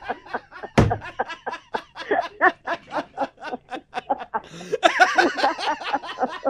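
Laughter: a long run of rapid chuckling pulses, with a loud thump about a second in.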